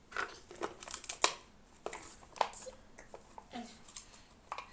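Hands handling a toy and its packaging: crinkling with a string of sharp, irregular clicks and taps.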